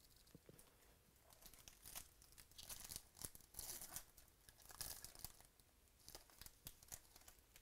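Faint crinkling and tearing of a 2018 Stadium Club baseball card pack's wrapper as it is ripped open by hand, in a series of short bursts.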